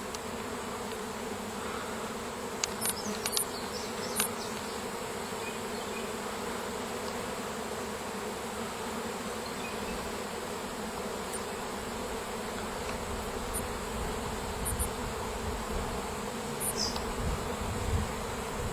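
A swarm of honey bees buzzing steadily as it moves into a swarm trap, with a few faint ticks about three to four seconds in.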